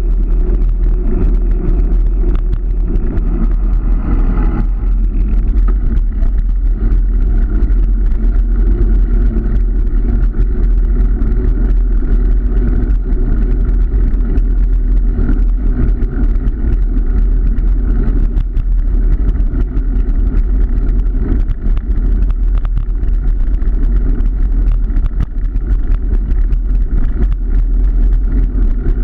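A car being driven, with engine and road noise as a steady drone. The engine note shifts once, about four to five seconds in.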